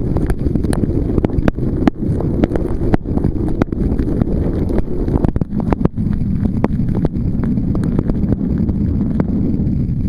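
Wind buffeting the microphone as a steady low rumble, with scattered sharp taps throughout.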